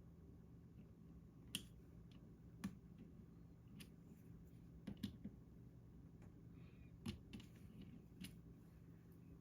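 Faint, sharp plastic clicks, about one a second with gaps, from small mechanical keyboard parts being handled during modding.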